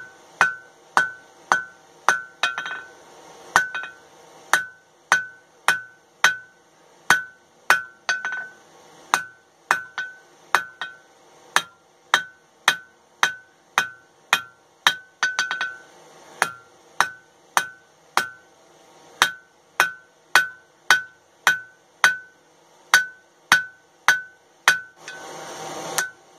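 Hand hammer striking red-hot flat steel bar stock on an anvil, about two blows a second with a few brief pauses, each blow followed by a bright ring from the anvil. The bar is being drawn out to length.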